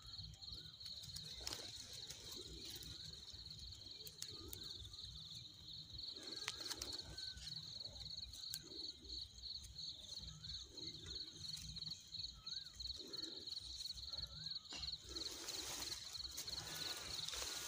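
Faint field ambience: a steady, fast-pulsing high insect trill, with low rustling of dry grass and a few sharp clicks from handling the grass.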